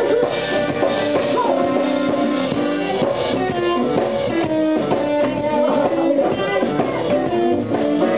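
Live blues band playing, with electric guitar, electric bass and drum kit.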